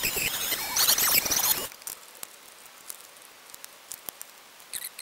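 Dremel rotary tool on a flexible shaft grinding down the edge of a plastic helmet ear cap, its high whine wavering as the bit bites, stopping suddenly a little under two seconds in. Then only faint clicks of the plastic parts being handled.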